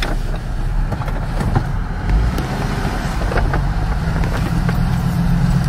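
Car engine and road noise heard from inside the cabin as the vehicle rolls forward slowly: a steady low hum.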